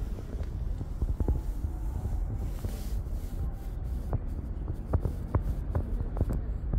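Orange cat purring close to the microphone, a steady low throbbing rumble, with scattered short scratchy rubbing noises as it is stroked and pushes against the person.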